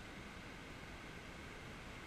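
Faint, steady hiss of ocean surf washing up the beach.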